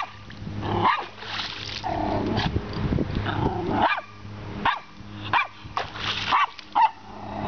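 Lhasapoo (small Lhasa apso–poodle cross) barking in several short, sharp barks while it snaps at water being splashed at it, with the splashing of creek water.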